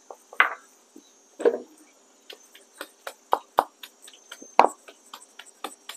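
Wooden pestle pounding a moist mix of ginger, garlic, lemongrass, chili, hạt dổi and mắc khén in a wooden mortar: separate knocks, a couple of heavier strikes in the first second and a half, then lighter ones about two a second. Crickets chirp steadily in the background.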